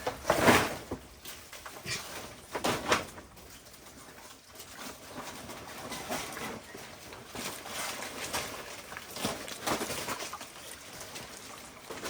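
Short animal calls: a loud one about half a second in, another near three seconds, then a string of quieter ones.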